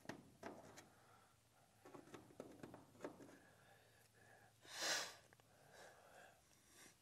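Mostly near silence, with faint light taps and scrapes of a felt-tip marker on aluminum sheet. A short, sharp sniff about five seconds in is the loudest sound.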